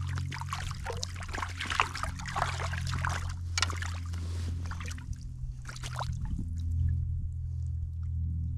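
River water splashing and trickling in bursts over the first few seconds, then quieter, over a steady low hum.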